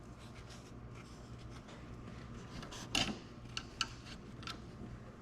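Hands working a small plastic piece out of the soft top's frame: light rubbing and scattered small clicks, with one sharper click about three seconds in and a few lighter ticks after it.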